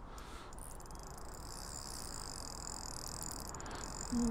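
Fishing reel giving a fast, high-pitched ticking while a hooked fish is played on the float rod, over a low steady rumble.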